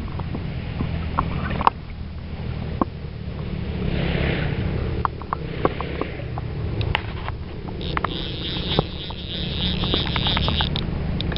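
Wind buffeting the camera microphone with a steady low rumble, scattered with sharp clicks and knocks from the camera being handled. A steady higher hiss joins about eight seconds in.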